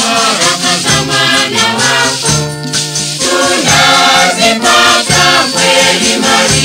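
Catholic gospel song in Swahili: choir music with a shaker keeping the beat.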